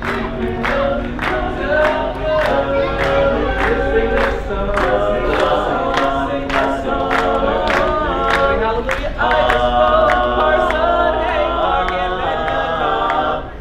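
Barbershop quartet singing a cappella in close four-part harmony. Sharp clicks about twice a second keep time under the singing.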